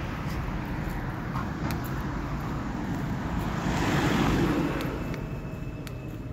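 Street traffic noise, with a vehicle passing close by about four seconds in: a swell of engine and tyre noise that rises and fades away.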